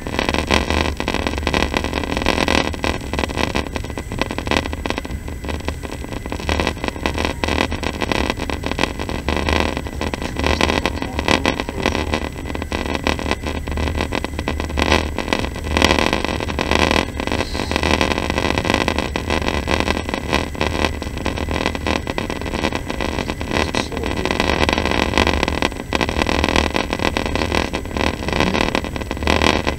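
Passenger train running, heard from inside the carriage: a steady low rumble with frequent clicks and rattles.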